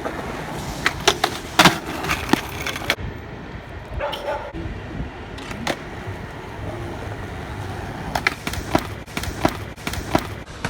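Skateboard rolling on pavement, the wheels giving a steady rumble, broken by a string of sharp clacks and knocks at irregular intervals.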